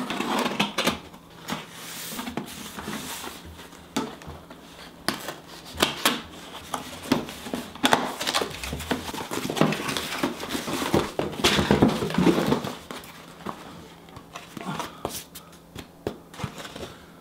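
Cardboard shipping box being opened: a kitchen knife slitting the packing tape, then the flaps pulled open and the contents lifted out. An irregular run of scraping, tearing and rustling cardboard and paper, with scattered sharp knocks, loudest a little after the middle.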